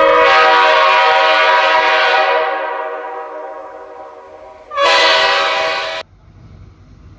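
Two blasts of a multi-tone train horn. The first is long and slowly fades over about four seconds; the second is shorter and cuts off abruptly after a little over a second.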